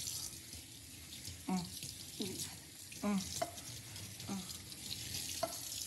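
Kitchen tap running water into a sink during washing-up, a steady hiss of water.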